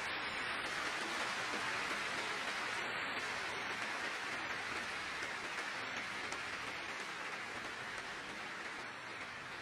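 Large audience applauding: a steady wash of many hands clapping that slowly fades toward the end.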